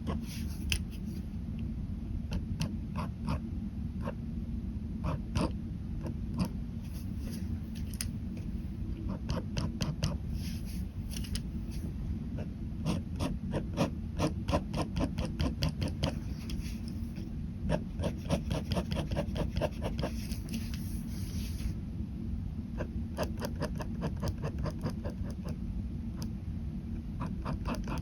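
Ballpoint pen hatching on paper: rapid short strokes, several a second, with a few longer scratchy stretches, over a steady low hum.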